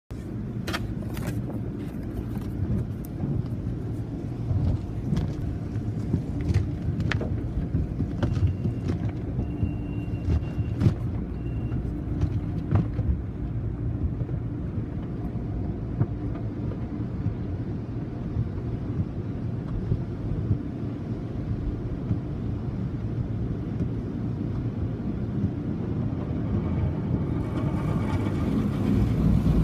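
Automatic tunnel car wash heard from inside the car's cabin: a steady low rumble of the wash machinery, with scattered knocks in the first half and water spray and cloth brushes on the car growing louder near the end.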